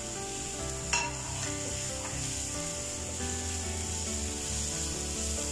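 Chopped onions, tomatoes, green chillies and curry leaves sizzling in hot oil in a non-stick frying pan while a wooden spatula stirs them, with one sharp knock about a second in.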